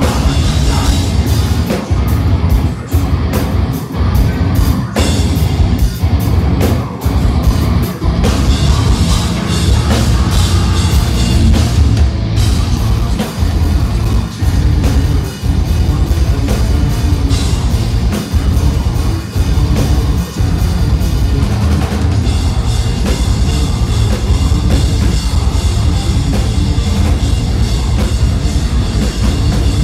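Deathcore band playing live: heavily distorted guitars, bass and drum kit with pounding bass drum, and a vocalist screaming. Choppy stop-start riffing with sharp breaks about once a second in the first eight seconds, then a continuous wall of sound.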